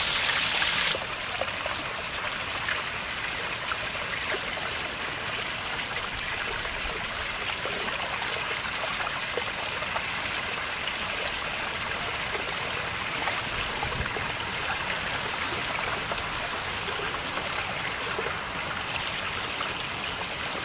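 Spring water pouring from a metal spout and splashing into a stone basin, giving way abruptly about a second in to the steadier, quieter trickle of a small brook.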